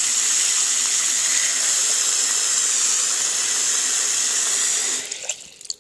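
Running water pouring steadily onto Lego bricks and a plastic baseplate, an even hiss that fades out about five seconds in.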